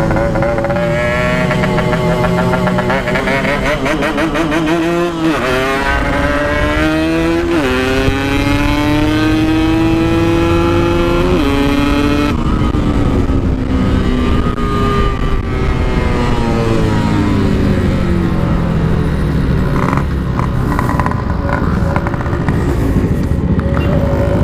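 Yamaha RX-King's two-stroke single-cylinder engine accelerating hard through the gears. The pitch climbs, drops sharply at each of three upshifts, then settles lower and steadier as the bike cruises.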